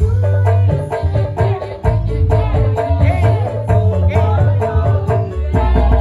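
Live dangdut music played loud through a PA: a driving hand-drum beat over heavy bass, with a singer's voice on top.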